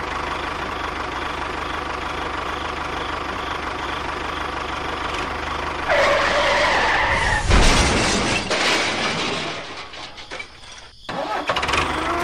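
Tractor engine running steadily for about six seconds. A higher wavering tone then sounds for about a second and a half, followed by a loud rushing noise that fades away.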